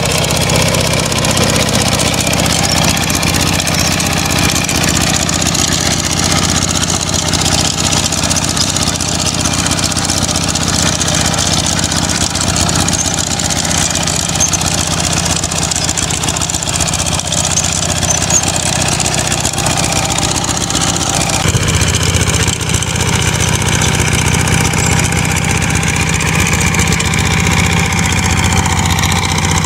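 Kubota K75 hand tractor's single-cylinder diesel engine running steadily while its rotary tiller works the soil. The engine note changes slightly about two-thirds of the way through.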